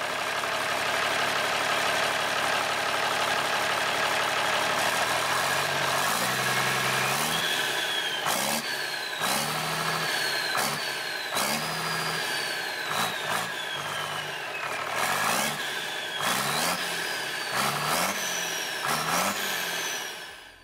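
Mercedes-Benz OM366LA six-cylinder turbo diesel running on a test stand: it idles steadily at first, then from about six seconds in is revved again and again, pitch rising and falling roughly every second and a half, with a turbo whistle that winds down after each blip.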